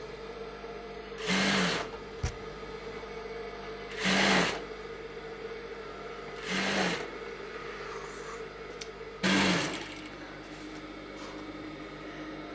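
Industrial lockstitch sewing machine stitching in four short runs about two and a half seconds apart, with a steady hum in between; the last run is a little under ten seconds in, after which only the hum remains.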